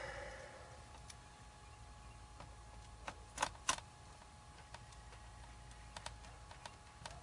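Scattered small clicks and taps of hand work on a laptop's casing and hinge screws, with two sharper clicks close together about three and a half seconds in.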